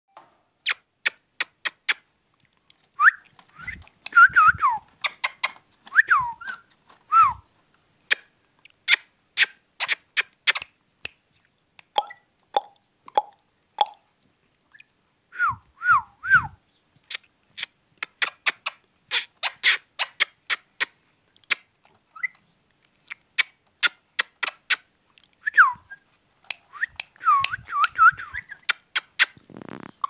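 Ringneck parrot giving short falling whistled calls in clusters a few seconds in, around the middle and near the end. Many sharp clicks run through the whole stretch.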